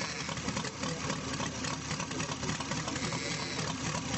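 Model aircraft piston engine running at a steady speed.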